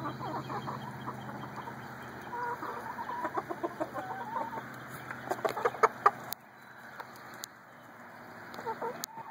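Chickens clucking softly, short calls one after another. A few sharp taps come about five to six seconds in, and a steady low hum runs underneath.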